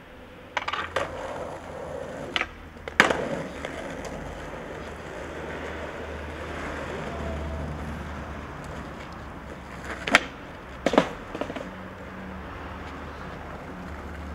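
Skateboard on concrete: sharp clacks and slaps of the board hitting the ground, a quick cluster in the first second, the loudest about three seconds in and two more around ten and eleven seconds in, with the rumble of its wheels rolling in between.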